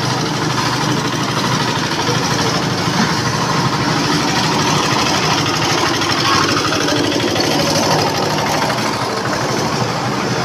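Portable concrete mixer's small single-cylinder diesel engine running steadily, with a rapid even beat.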